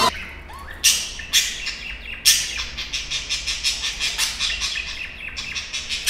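Budgerigars chirping and chattering in quick, sharp high calls, with a few louder chirps about one and two seconds in.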